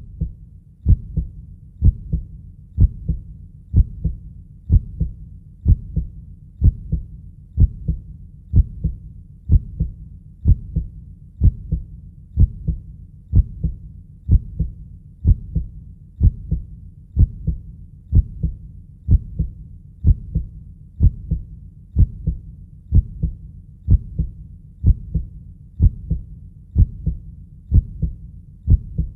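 Heartbeat sound: a steady low double beat, a strong thump followed by a softer one, about once a second over a soft constant low whoosh.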